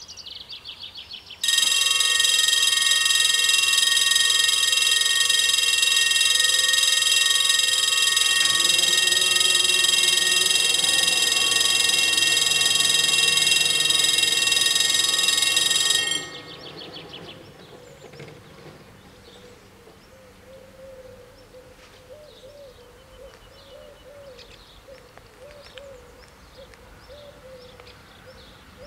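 Level-crossing warning bells ringing: faint rapid ringing at first, then loud and steady from about a second and a half in, cutting off suddenly about 16 seconds in as the barriers come down.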